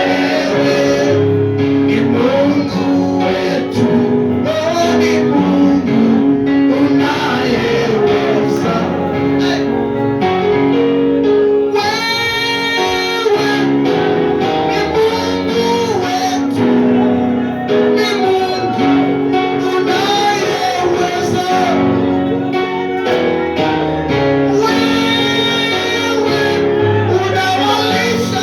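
Worship song: singing over guitar and band accompaniment, with held notes and a steady level throughout.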